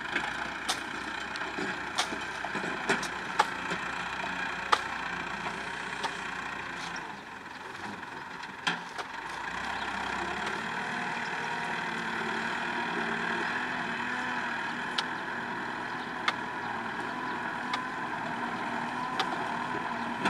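Sugarcane grab loader's engine running steadily as the machine drives with a load of cane in its grab, with sharp knocks and clanks scattered throughout. The engine note drops briefly about seven seconds in, then picks up again and holds.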